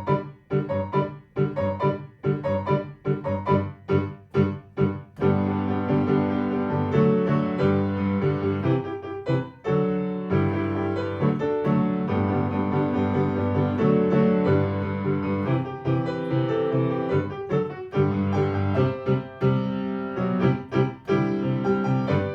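Background piano music: about five seconds of separate, evenly spaced notes, then fuller chords.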